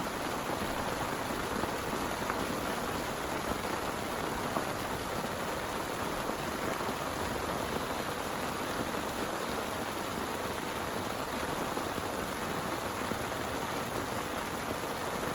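Heavy rain falling steadily: a dense, even hiss with small irregular drop hits.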